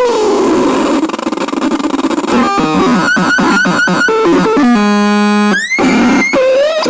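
Synthesizer playing noisy electronic sounds. It opens with a hissing wash of noise, then plays a run of short pitched blips at about four a second. Near the end come a held buzzy tone, a quick upward pitch sweep and a wavering tone.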